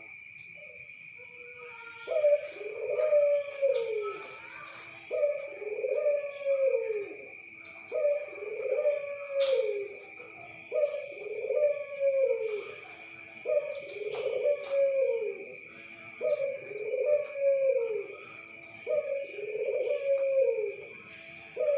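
Local puter dove (domesticated Barbary dove) cooing: a low coo phrase repeated about every two and a half to three seconds, each dropping in pitch at its end, eight times after a short pause. A steady high whine sounds behind it.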